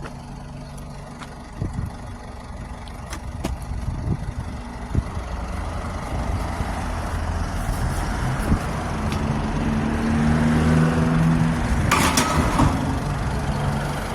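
Scrap-collecting truck's engine running as it drives, rising in pitch and getting louder partway through as it picks up speed, with a few knocks and a short burst of noise near the end.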